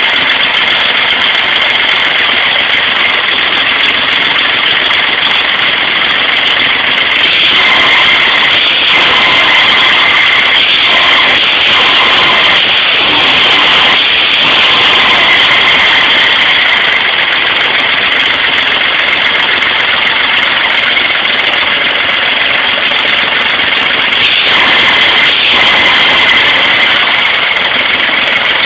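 Engine running loudly and steadily on test, with its sound swelling briefly a few times.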